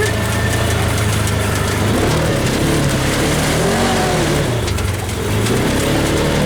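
Engine of a Polaris RZR side-by-side running as it is driven, its pitch rising and falling between about two and five seconds in.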